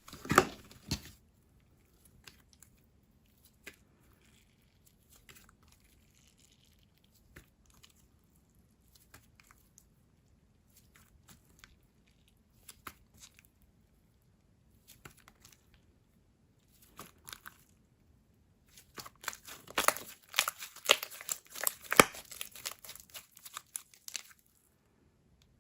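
Clay slime with jelly cubes being squished and worked by hand, giving sticky crackles and small pops. They come scattered at first, with a dense loud run of crackling from about 19 to 24 seconds in.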